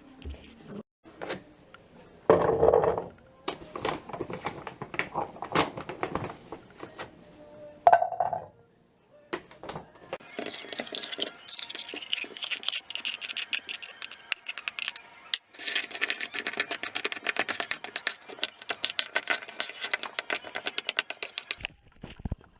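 Clinking and rattling of small hard objects, with scattered knocks, then two long stretches of dense, rapid rattling.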